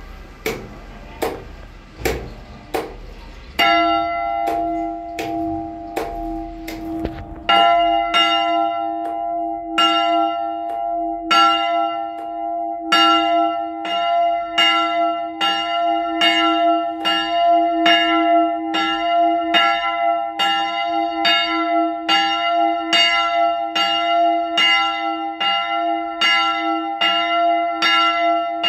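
Small bronze church bell (a sonello tuned to a slightly flat F, cast by Rafanelli in 1870) swung by an electric motor in full swing ringing. After a few seconds of regular clicking, its tone starts about four seconds in, and from about seven seconds it rings steadily, a stroke about every three quarters of a second.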